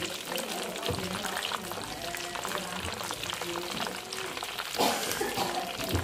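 Food deep-frying in a wok of hot oil, with steady sizzling and crackling. A wire-mesh skimmer stirs through it and knocks and scrapes against the pan a few times, the loudest knock a little before the end.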